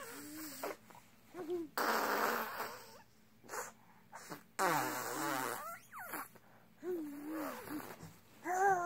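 A young child making vocal sound effects: short pitched squeals and coos alternating with buzzy, sputtering blowing sounds like raspberries, in separate bursts with short pauses between.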